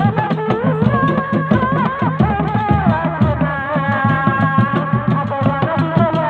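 Javanese folk performance music: hand drums beating a fast, steady rhythm under a wavering, sliding lead melody.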